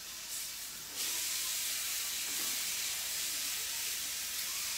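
Chicken frying in a pan, a steady sizzle that gets suddenly louder about a second in and then holds.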